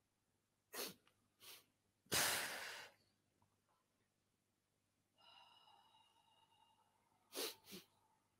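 A person's breathing sounds: two short sharp breaths, then one loud hissing exhale lasting under a second, and two more short breaths near the end. Between them a faint steady tone with several pitches is held for about two seconds.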